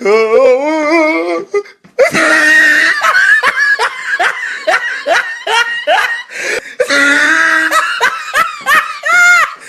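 People laughing hard in quick repeated bursts, after a high voice wavering up and down for the first second and a half.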